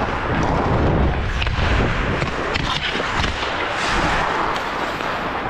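Ice hockey skates carving and scraping across the ice during play, with a constant rush of noise and scattered short sharp clicks.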